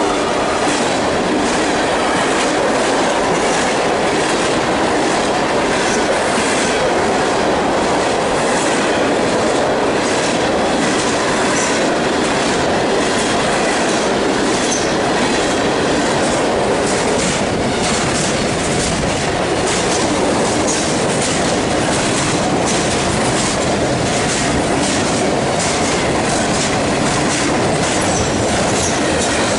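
CSX freight train's cars rolling past close by: a steady loud rumble of steel wheels on rail, with a quick run of clicks as the wheel sets cross the rail joints.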